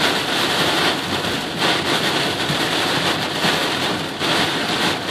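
Heavy rain beating on a car's roof and windscreen, heard from inside the cabin as a loud, steady rush.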